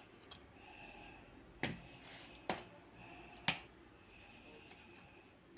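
Three light, sharp clicks about a second apart: a spoon knocking against the dishes while green peppers are stuffed with raw rice filling.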